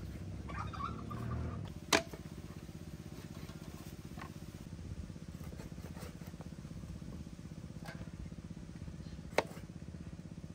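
Kitchen knife chopping raw chicken wings on a wooden chopping block: two sharp knocks as the blade goes through onto the wood, about two seconds in and near the end, with a few lighter taps between. A steady low motor-like hum runs underneath.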